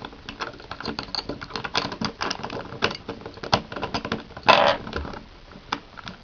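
Plastic Rubik's Cube pieces clicking and clattering irregularly as the cube is handled and a side (edge) piece is worked into place, with one louder, brief rattle about four and a half seconds in.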